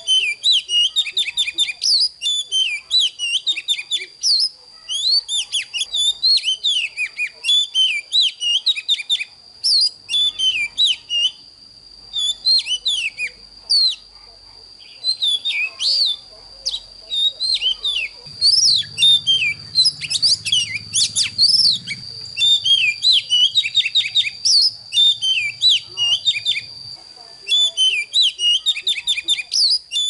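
Oriental magpie-robin singing a fast, varied song of rapid sweeping notes in phrases with short pauses between them, over a steady high-pitched tone.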